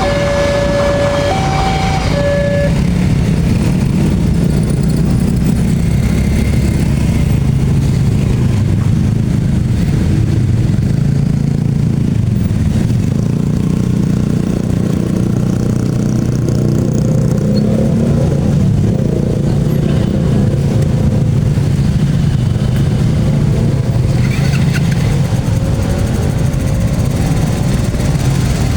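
A steady two-tone warning signal alternating between two pitches for the first couple of seconds, then a long steady low engine rumble with a few engines revving up near the end.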